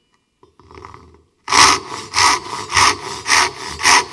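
Japanese ryoba pull saw ripping down along the grain of white oak, its rip teeth cutting fast. A steady run of rasping saw strokes, about two a second, begins about a second and a half in, after a short near-quiet pause with faint handling.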